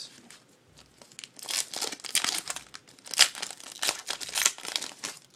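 A baseball card pack's wrapper being torn open and crinkled: quick irregular crackling that starts about a second in and runs for some three and a half seconds.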